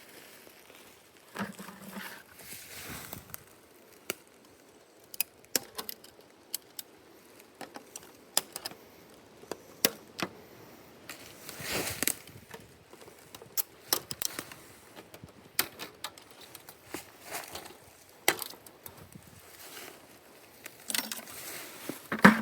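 Hands working with tools and fittings on maple sap tubing: irregular clicks, taps and knocks with a few short rustling swishes, and a louder knock near the end.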